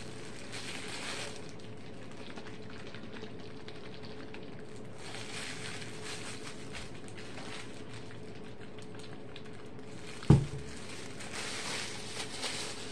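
A plastic squeeze bottle of tie-dye dye and water being shaken and handled, giving a hissing, sloshing rattle in three separate spells. One sharp knock comes about ten seconds in.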